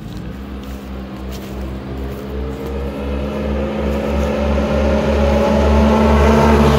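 Two Polaris RZR S side-by-sides, an S 1000 and an S 900, accelerating flat out toward the listener in a drag race, their engines growing steadily louder and climbing in pitch. Near the end the lead machine's engine note starts to drop as it nears and passes.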